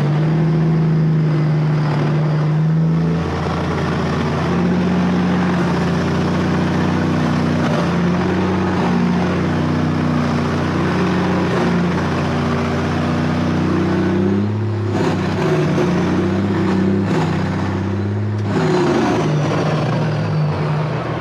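Diesel engine of a semi truck running at low speed while reversing, its pitch stepping up and down as the throttle changes. A few short hissing bursts come near the end.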